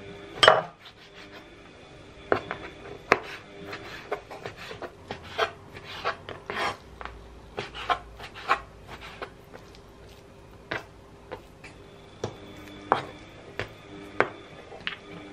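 Chef's knife dicing raw chicken breast on a plastic cutting board: irregular knocks of the blade against the board, the loudest about half a second in.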